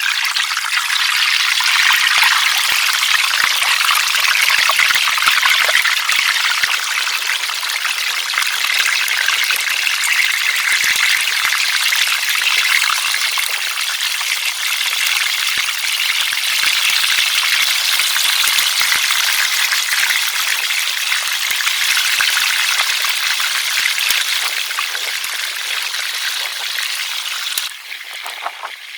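Fish frying in hot oil: a loud, steady sizzle with fine crackling, which drops off abruptly near the end.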